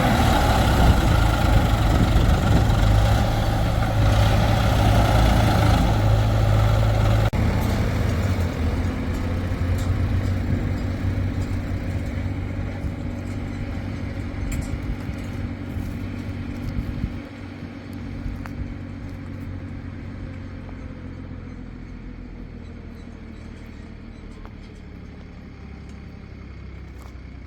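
A heavy machine's diesel engine running steadily, loud for the first several seconds, then growing steadily fainter until it is faint near the end.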